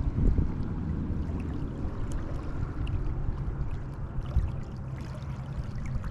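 Low, steady wind rumble buffeting the microphone, with faint water sounds.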